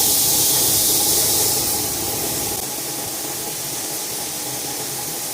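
Pneumatic spray gun hissing as it lays a second coat of white base paint. The hiss is loudest for the first two seconds or so, then drops to a softer steady hiss.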